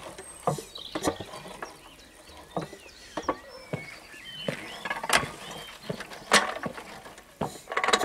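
Scattered knocks and clicks from handling around a stationary diesel engine that has failed to start and is not running, with faint bird chirps behind.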